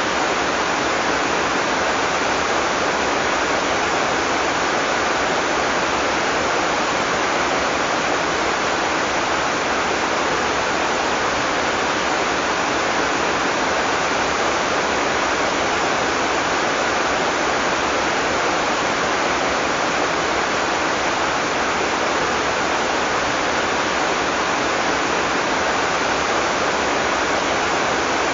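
Heavy tropical rain falling steadily as a dense, even hiss, with no thunder.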